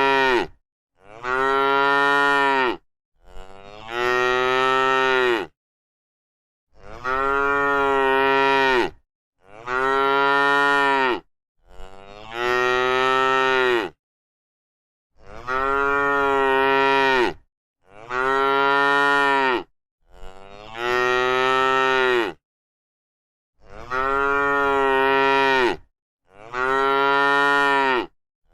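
A cow mooing over and over: long drawn-out moos of about two seconds each, coming in groups of three with short silent gaps between the groups.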